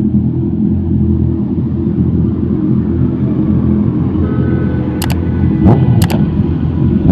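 Engines of a line-up of sport motorcycles, Honda 650 inline-fours among them, idling together as a steady low rumble. Three sharp clicks come about five to six seconds in.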